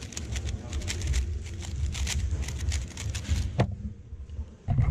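3x3 speedcube being turned very fast, a rapid rattle of plastic layer clicks over a low room rumble. A single sharp knock comes about three and a half seconds in as the solve ends and the cube is set down.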